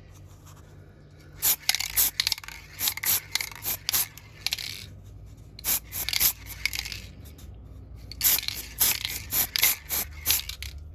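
Aerosol spray paint can giving a model a light base coat in a string of short hissing bursts, some brief puffs and some held for about half a second, starting a second or so in.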